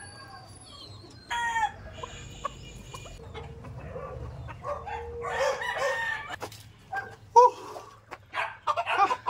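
Gamefowl stags (young roosters) crowing and clucking, several calls overlapping, with one short loud call about seven seconds in.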